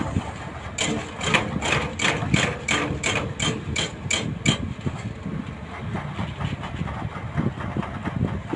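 A heavy diesel engine running steadily at low revs. Over it, a run of sharp, evenly spaced clicks, about four a second, starts about a second in and stops about halfway through.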